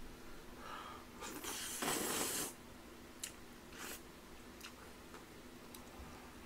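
A person eating chewy jjolmyeon noodles from a bowl: a noisy slurp about a second and a half in, then chewing with a few light clicks.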